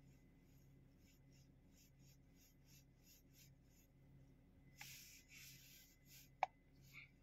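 Near silence, with a faint rubbing about five seconds in and a single sharp tap about a second later, then a smaller one: a finger swiping and tapping a diagnostic tablet's touchscreen.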